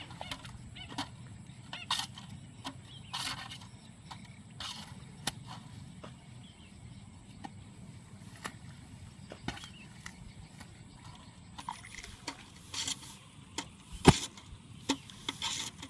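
Irregular scraping and chopping strokes of a blade slicing a rice seedling nursery bed into mats for a transplanting machine, with one loud sharp knock about fourteen seconds in.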